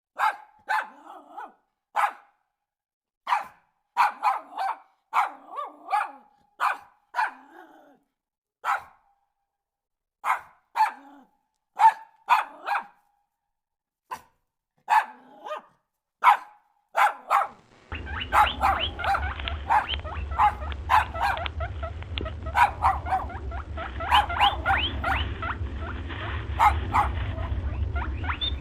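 A dog barking in short, sharp barks, singly or in quick runs of two or three with silent gaps between. About two-thirds of the way through a steady low hum comes in, with denser short sounds over it.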